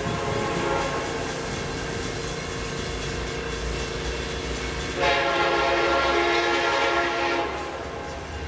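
Diesel freight locomotive's air horn sounding as the train approaches: a blast that fades after about a second, then a louder blast about halfway in that holds for two to three seconds, over the low rumble of the train.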